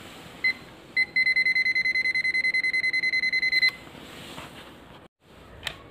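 ZOYI ZT-QB9 clamp meter's non-contact voltage buzzer: two short high-pitched beeps, then fast beeping at about ten a second for some two and a half seconds, stopping suddenly. The meter is sensing the live (phase) conductor of a 220 V mains cord held in its jaw.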